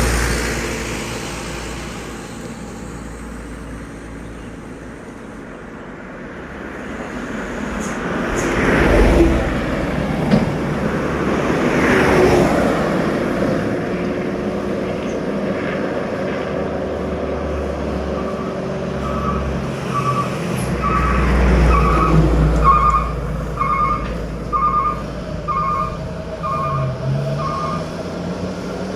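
Highway traffic with heavy trucks and cars passing one after another, each swelling and fading as it goes by. In the second half a beep repeats about once a second.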